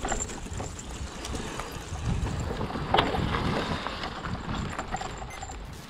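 Hardtail e-mountain bike rolling down a dry, leaf-covered dirt trail: tyre noise on dirt and leaves with wind rumbling on the microphone and small rattles from the bike. There is a louder clunk about three seconds in.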